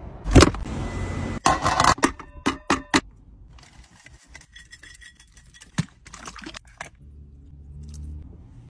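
Handling noises of food and a metal serving platter: a thump about half a second in, then a quick run of metallic clinks and clatters with a short ringing. Softer scattered clicks follow, and a low steady rumble comes in near the end.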